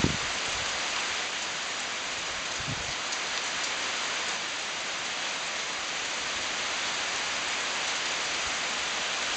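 Heavy downpour: dense, steady rain hiss. There are two brief low thumps, one at the very start and one about three seconds in.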